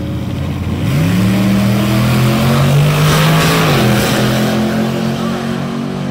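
Two V8 drag-racing trucks launching off the line and accelerating hard down the strip. The engine pitch rises sharply about a second in, holds high, and falls back once about four seconds in before climbing again.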